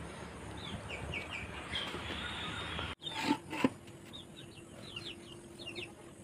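Small bird chirping in short runs of quick high notes, about a second in and again in the second half, over a rustling noise that stops midway; two sharp knocks come just after the rustling stops.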